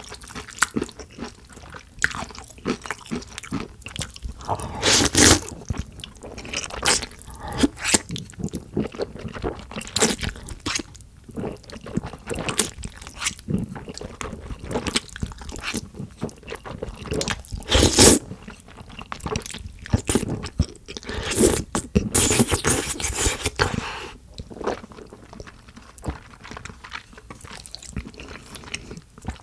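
Close-miked eating of jajangmyeon: wet slurping of sauce-coated noodles and steady chewing, with a few louder slurps along the way.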